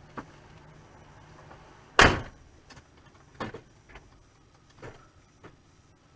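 A single loud thump about two seconds in, followed by a few lighter knocks and taps.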